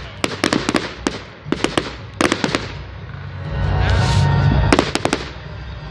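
Fireworks going off: sharp cracks and bangs in quick clusters, and a deep rumble swelling up around the middle.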